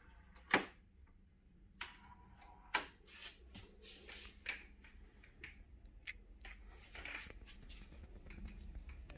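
Faint handling noise: a sharp click about half a second in, two softer clicks, then a run of soft rustles and taps, over a low steady hum.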